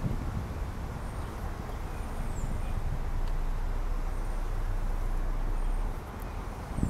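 Open-top car driving slowly, a steady low rumble of wind on the microphone and road noise, dipping briefly near the end. Faint high bird chirps come through a few times.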